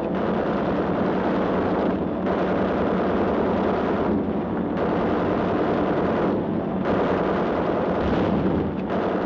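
Dubbed newsreel battle sound effects: gunfire and blasts merged into a dense, continuous roar, with brief dips in the higher sound about every two seconds.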